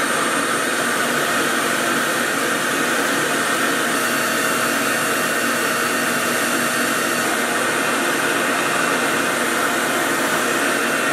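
RevAir reverse hair dryer running steadily, its suction wand drawing a section of hair through while drying it: an even, loud rush of air with a few faint, steady high whining tones.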